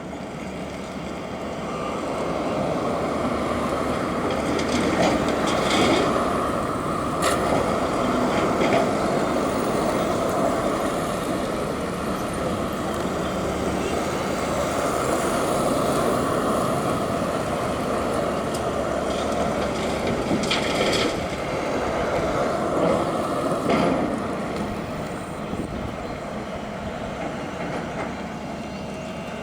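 Backhoe loader's diesel engine working under load, with a few sharp knocks and rattles as it loads a dump truck. It grows louder about two seconds in and eases off near the end.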